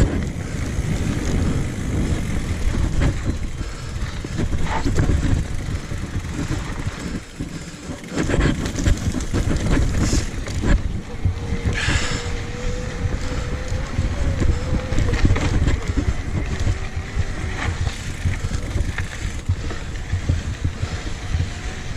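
Mountain bike descending a rough dirt trail: wind rushing over the microphone and tyre noise, with frequent short rattling knocks as the bike goes over bumps.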